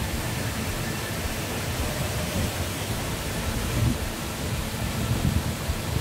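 Steady rushing of water from a mountain stream and waterfall tumbling over rocks in a narrow gorge.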